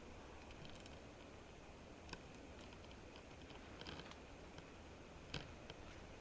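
Faint crackling of a campfire burning low: scattered small ticks, with a sharper pop about two seconds in and another a little after five seconds.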